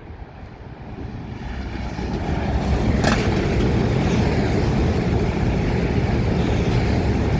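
Eurostar Class 374 high-speed train running through at speed: a rushing noise of wheels and air that builds over the first two seconds and then stays loud and steady, with one sharp crack about three seconds in.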